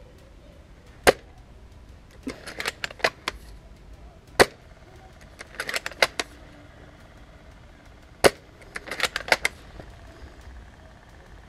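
Tokyo Marui VSR-10 G-Spec spring bolt-action airsoft sniper rifle fired three times, each shot a single sharp crack. About a second after each shot comes a quick run of metallic clicks as the bolt is cycled to cock and chamber the next BB.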